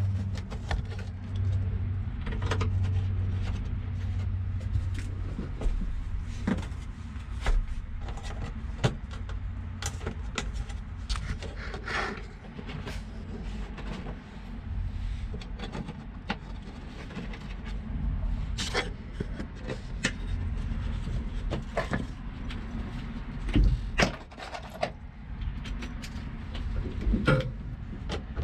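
Sheet-metal fuel pump access cover of a Honda Civic being set back over the pump and screwed down to the floor pan: scattered metallic clicks, taps and scrapes from the cover and its screws. A low hum fades out in the first few seconds.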